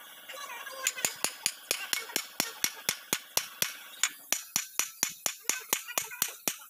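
Rapid, even hammer blows on steel at the kingpin boss of a truck's front axle I-beam, roughly four to five ringing strikes a second, starting about a second in. This is typical of driving a kingpin or its bushing during a kingpin replacement.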